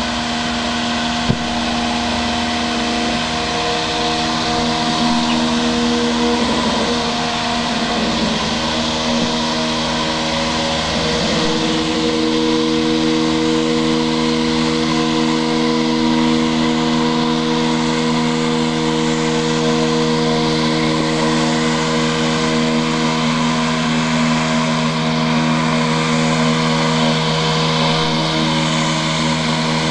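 Homemade robotic lawn mower in a Black & Decker cordless mower body running: a steady electric motor hum of several held tones over a hiss as it drives across the grass. A single sharp click comes about a second in, and the hum's pitch shifts slightly about twelve seconds in.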